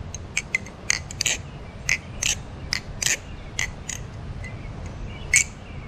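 MachineWise Sasori balisong (butterfly knife) being flipped: the handles and blade clack and click sharply and irregularly as they swing around the pivots and meet, about fifteen clicks in a few seconds.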